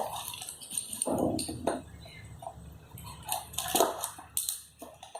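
Packaging being handled and opened by hand during an unboxing: irregular rustles and sharp little clicks.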